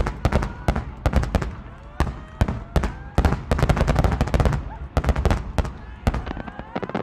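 Aerial fireworks exploding in rapid, irregular succession: dozens of sharp bangs and crackles, some clustered a few per second, starting abruptly.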